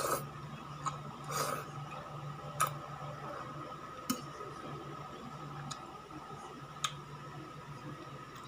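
Mouth-close eating sounds: noodles slurped at the start and again a second or so later, with a few separate sharp clicks of metal chopsticks against the ceramic bowl, over a steady low hum.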